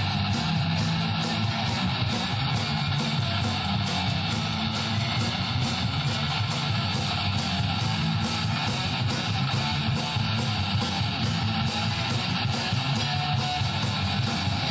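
Live rock band playing: strummed electric guitars over bass and drums, with a steady beat throughout.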